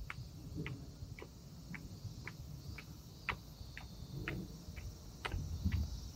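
Footsteps of someone walking on pavement, an even tick about twice a second, over a steady hum of cicadas singing in the summer heat.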